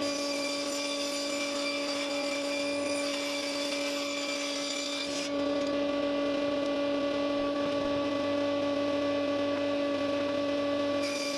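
Table saw running with a steady whine, ripping a strip of 3/4-inch plywood along the fence. About five seconds in the cut ends and the blade spins free, and near the end the next strip goes into the blade.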